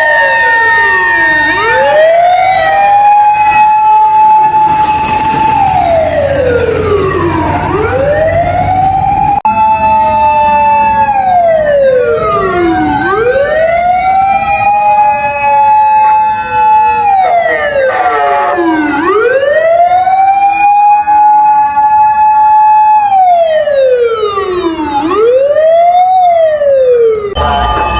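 Japanese fire engine siren wailing in a repeated cycle: it winds up to a high note, holds it for a few seconds, then slides down, about every five to six seconds, with a faster shorter cycle near the end. A low truck-engine rumble is under it during the first few seconds.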